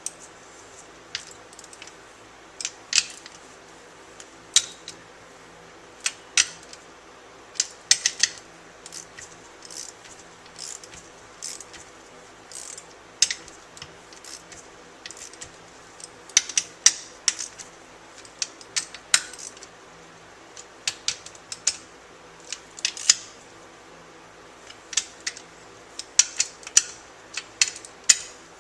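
Sharp metallic clicks and clinks of a socket wrench at work on the side-cover bolts of a Muncie four-speed transmission as they are snugged down, coming irregularly, singly and in short quick runs.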